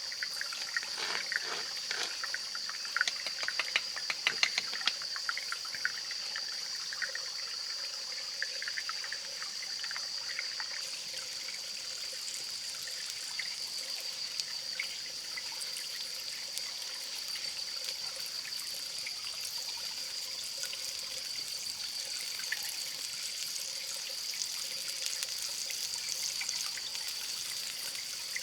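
Water trickling steadily over a steady high-pitched tone. A run of small clicks and crackles sounds in the first few seconds.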